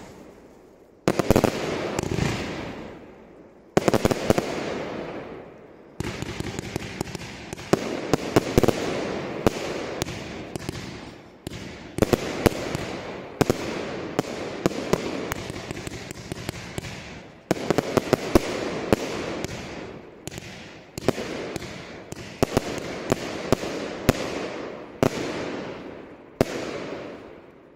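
Aerial fireworks going off in a rapid barrage: sharp bangs, each followed by dense crackling that dies away. There are three separate bursts at first, then an almost unbroken run, which fades out just before the end.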